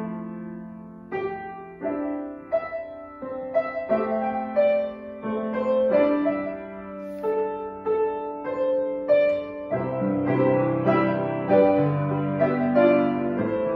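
Piano playing a slow, gentle piece, one note or chord after another, each fading after it is struck; lower bass notes join about ten seconds in.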